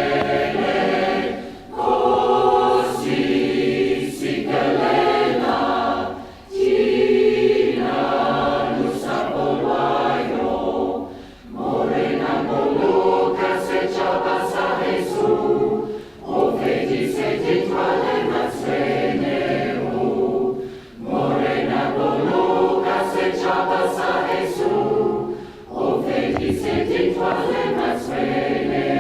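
Community choir singing in harmony, in phrases of a few seconds with short breaks for breath between them.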